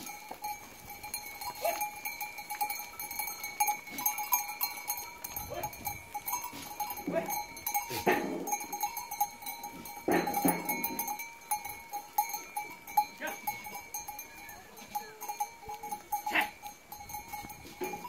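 Bells on a passing herd of goats clinking and ringing steadily, with a few goat bleats among them.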